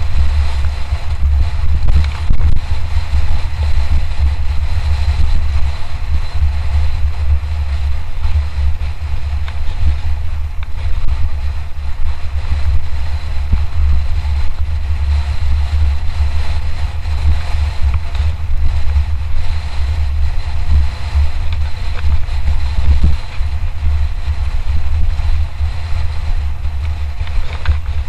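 Heavy wind buffeting on an action camera's microphone during a fast mountain bike descent, surging and easing. Under it runs a steady hiss of tyres on the trail, with a few light rattles from the bike.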